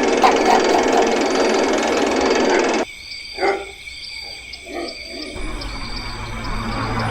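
A passing train's running noise cuts off abruptly a little under three seconds in. After it come a few faint short sounds and then a low steady hum.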